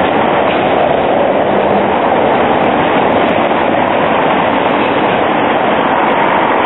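Škoda 15T ForCity low-floor tram running over street rails, a steady rolling noise, together with a car driving past.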